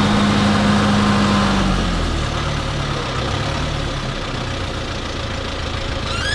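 Tractor engine running steadily at raised revs, then dropping to a lower steady idle about two seconds in.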